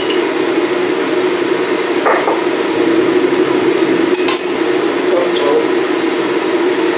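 A glass jar and dried spices being handled on a wooden board: a few light knocks, and a bright clink of glass about four seconds in, over a steady low hum.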